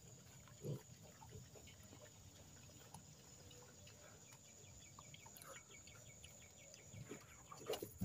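Near silence with faint, scattered grunting from pigs, a sow and her piglets, and a faint rapid ticking for about a second past the middle.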